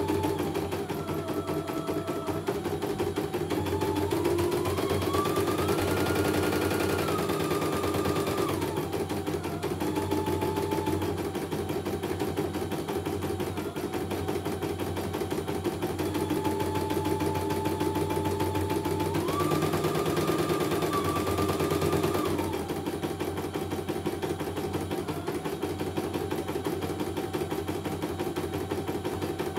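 CNY E900 computerized embroidery machine test-stitching a design: a fast, steady needle clatter with a motor whine that steps up in pitch and back down twice, a few seconds in and again past the middle.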